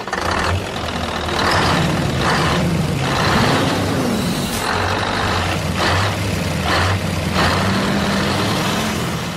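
Heavy truck engine sound effect running steadily, its pitch rising and falling once near the middle, with short hissing bursts every second or so.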